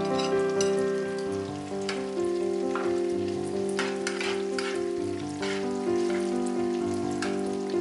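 Shrimp and fusilli sizzling in olive oil in an electric grill pan, with metal tongs clicking against the pan several times as the pasta is tossed. Background music with sustained notes plays throughout.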